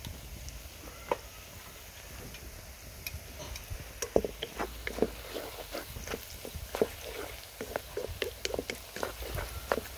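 Wooden spatula stirring onions and cumin seeds in a steel wok, scraping and knocking against the pan several times a second, beginning about four seconds in.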